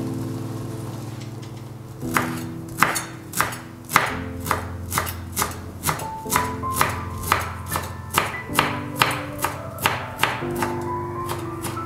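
Chef's knife chopping fresh dill on a white cutting board, a steady run of sharp knocks about two to three a second, starting about two seconds in, over background music.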